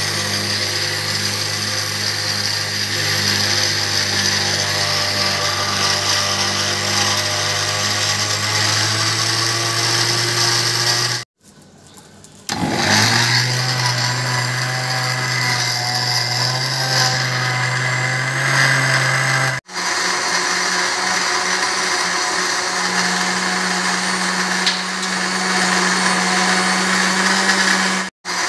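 Electric mixer grinder running at speed with a steady motor whine. It stops for about a second near the middle, then starts again at a slightly higher pitch, and the tone changes once more after another brief break.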